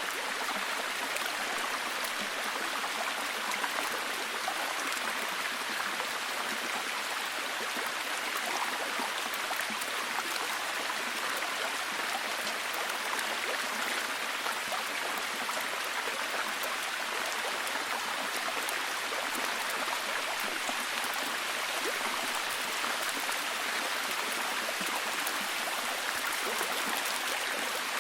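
Heavy, steady rain: an even hiss with a dense patter of individual drops, unchanging throughout.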